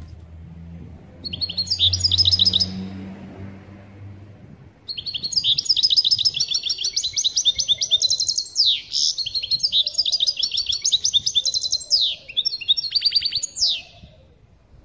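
European goldfinch singing its chattering 'pat-pat' song, the twitter keepers use to rouse another goldfinch into song: a brief burst of rapid high notes about a second in, then a long run of fast repeated notes with a few sliding notes that stops shortly before the end. A faint low hum lies under the first few seconds.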